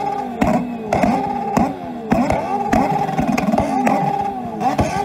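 Motorcycle engines revved hard again and again against the rev limiter through open exhausts. Each rev is held briefly at the limiter with a sharp crack, then falls away, about twice a second.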